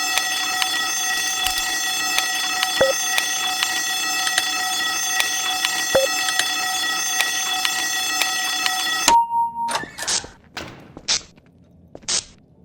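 Door alarm sounding a steady, high electronic tone that cuts off suddenly about nine seconds in. A short beep follows, then a few sharp clicks.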